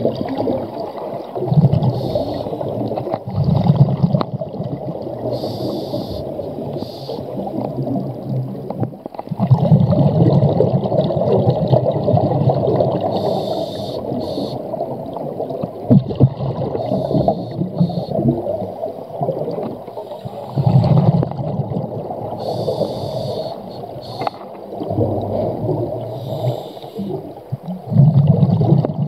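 Scuba diver breathing through a regulator underwater: short hissing inhalations every several seconds, alternating with low bubbling exhalations.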